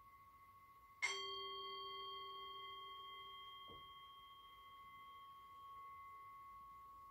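A steady high ringing tone, then about a second in a small bell-like metal instrument is struck once and rings out with several clear tones, fading slowly. A light knock sounds near the middle.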